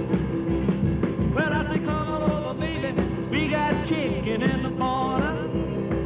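Oldies rock and roll music playing.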